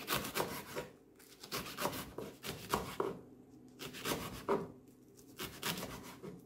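Kitchen knife finely slicing a bunch of rolled fluted pumpkin (ugu) leaves on a wooden chopping board: quick runs of crisp cutting strokes against the board, about four runs with short pauses between.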